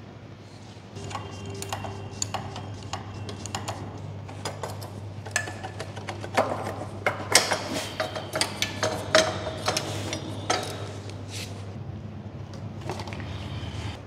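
Metal motorcycle parts and hand tools clinking and knocking as they are handled during dismantling, some strikes ringing briefly, the clatter busiest in the middle. A steady low hum runs underneath.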